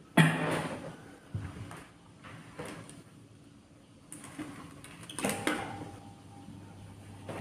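Brief knocks, scrapes and rustles of handling on a cloth-covered tabletop, as a paper colouring sheet is moved about. The loudest comes just after the start and fades quickly, followed by a few small clicks and another cluster about five seconds in.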